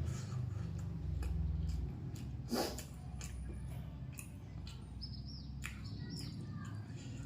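Close-up mouth sounds of someone eating: soft wet clicks and smacks while chewing, one a little louder about two and a half seconds in. A low hum fades after the first two seconds, and a few short, high, bird-like chirps come around five seconds in.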